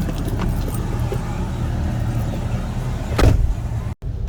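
1998 Jeep Wrangler TJ driving on the road: a steady low drone of tyre and drivetrain noise, with one short loud thump about three seconds in. The freshly rebuilt Dana 35 rear axle gives no clunking or metal-on-metal noise; it is sounding pretty good.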